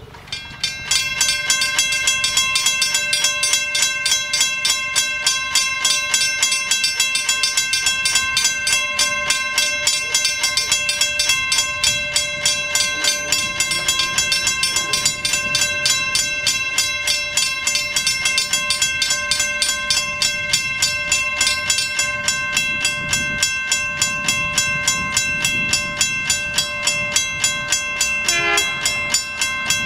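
Western Cullen Hayes mechanical level-crossing bells start ringing within the first second and keep up a rapid, even stream of strokes, each ringing with clear metallic tones: the warning that the crossing signals have activated.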